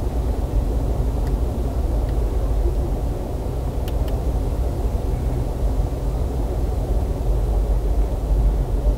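Steady low rumble of a 2015 Nissan Altima heard from inside its cabin, with two faint clicks about four seconds in.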